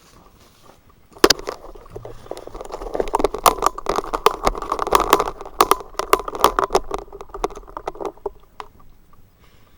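Fast-food paper packaging being handled: dense rustling and crinkling with many sharp crackles that starts abruptly about a second in and stops after about seven seconds.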